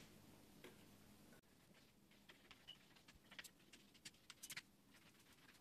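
Near silence: room tone with a few faint, scattered clicks and taps, several close together about four seconds in.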